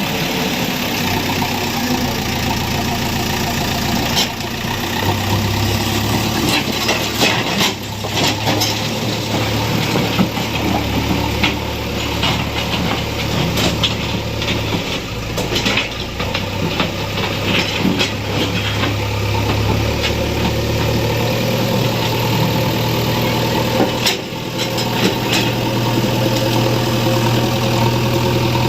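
JCB 3DX backhoe loader's diesel engine running, its low note shifting up and down several times as it works, with scattered sharp clanks and knocks.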